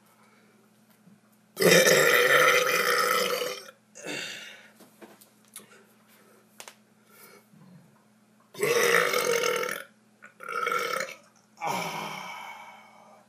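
A man burping deliberately: one long, loud burp lasting about two seconds, a short one right after, then three more burps in quick succession near the end.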